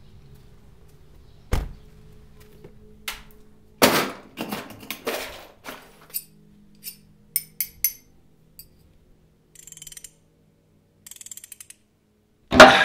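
Hand tools at work on plumbing: metal open-end wrenches clinking and clanking, with scattered knocks and rattles over a faint low hum. A loud thunk comes near the end.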